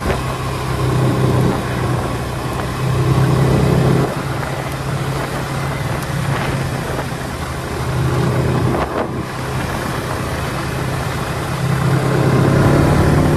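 Snowmobile engine running as the machine is ridden along a snowy trail: a steady hum with a rushing noise, swelling louder and easing off several times.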